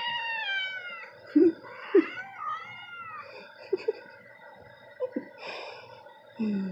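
Cat meowing: a long call falling in pitch at the start, then a shorter meow that rises and falls about two seconds in. A few short, low sounds come in between and near the end.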